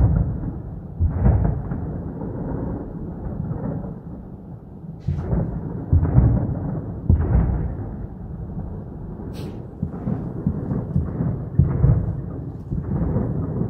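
Deep rolling rumble from a stormy sky, swelling and fading in repeated surges, of the kind reported as a mysterious sky sound. Two brief sharp clicks cut in about five and nine seconds in.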